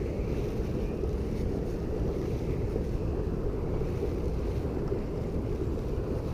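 Steady low wind rumble buffeting the microphone on an open boat on the water.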